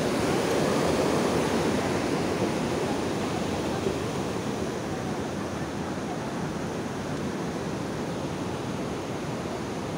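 Water rushing through a dam's sluice gates, a steady noise that eases slightly after the first few seconds.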